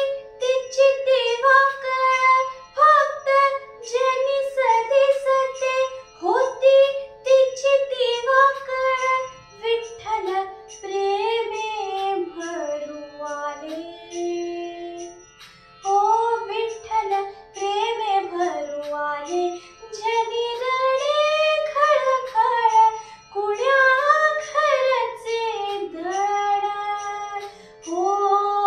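A girl singing a Marathi devotional song (bhakti geet), holding long notes and sliding between pitches in melodic ornaments.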